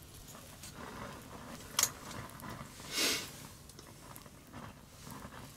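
Small handling noises in a quiet room: a sharp click a little under two seconds in, then a brief rustling hiss about a second later, with faint rustles between.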